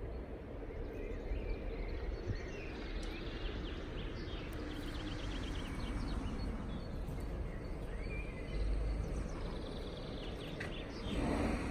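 Outdoor ambience: a steady low rumble with small birds chirping now and then, including a quick trill, and a broader swell of noise near the end.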